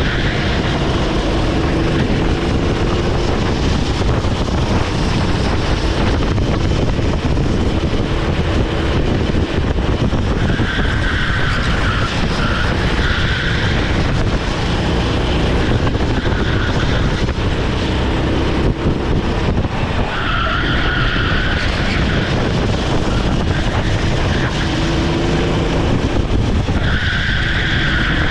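Rental kart's Honda GX390 single-cylinder engine running hard, heard onboard. The tyres squeal in bursts four times, each lasting one to a few seconds, as the kart slides through corners.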